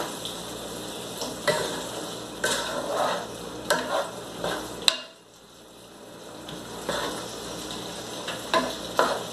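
A vegetable medley of Brussels sprouts, onions and okra sizzling in a nonstick frying pan on a gas burner. A wooden spatula stirs and scrapes it, knocking sharply against the pan several times. The sizzle falls away about halfway through and builds back up a second or two later.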